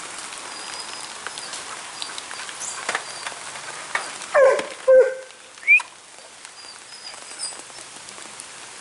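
Steady patter of rain on the plastic tarp covering the ring mat, broken about halfway through by three short, loud yelps.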